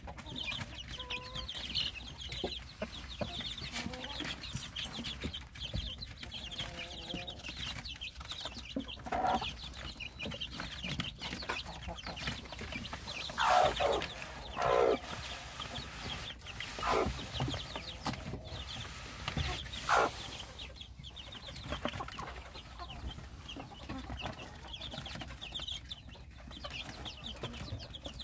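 Korean native chicken chicks peeping with many small high cheeps, while a grown chicken clucks a few times in the middle, the loudest calls about halfway through.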